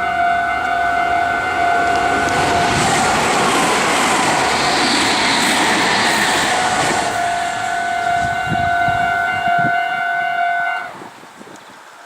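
A Japanese level-crossing alarm sounds steadily while a Meitetsu electric train passes, its wheel and running noise loud from about two and a half to seven seconds in, followed by a few low wheel thuds. The alarm cuts off near the end as the crossing clears.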